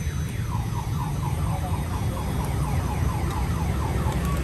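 Electronic alarm sounding a fast run of falling chirps, about four a second, over a steady low rumble of street noise.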